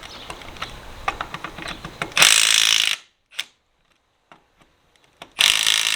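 Rapid mechanical ratcheting clicks, then two loud bursts of rushing noise, each under a second long and about three seconds apart, from work on a tractor wheel.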